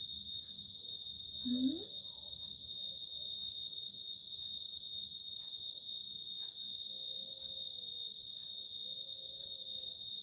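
A cricket trilling steadily on one continuous high-pitched note. A short rising vocal sound from a woman comes about one and a half seconds in.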